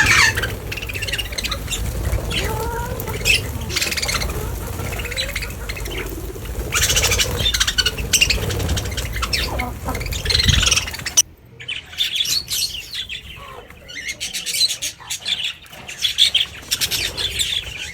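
Many birds calling at once, a dense mix of squawks and chirps. A heavy low rumble of wind on the microphone runs under the calls and cuts out abruptly about two-thirds of the way through, after which the calls continue more clearly.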